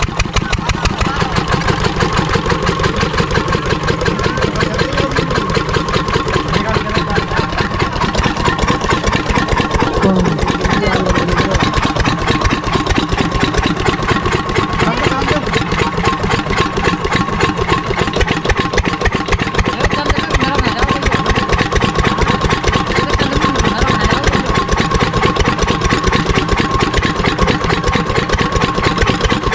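12 hp single-cylinder diesel irrigation pump engine running steadily, its firing strokes coming in an even, rapid beat throughout.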